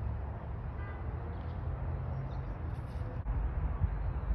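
Steady low rumble of wind on the microphone, with a few faint thin high tones about a second in.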